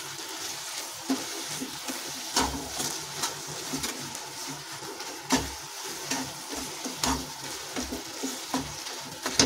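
Wooden spatula stirring and scraping a thick mix of grated bottle gourd and milk powder in a non-stick kadai. The spatula knocks against the pan irregularly, about once a second, over a light sizzle from the hot pan.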